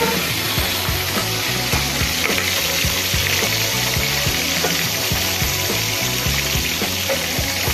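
Fish pieces frying in hot oil in a wok, a steady sizzle as more marinated pieces are slid in from a spatula.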